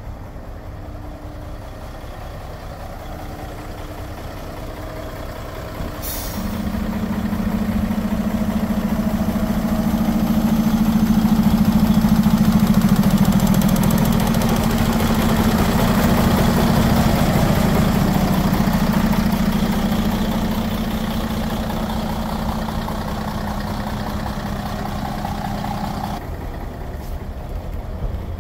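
Mercedes-Benz Actros 4140 tipper truck's diesel engine idling. About six seconds in comes a short hiss of air, then a steady, louder drone for about twenty seconds as the engine is held at raised revs to drive the hydraulics that tip the body. The drone cuts off suddenly near the end, and the engine goes back to idle.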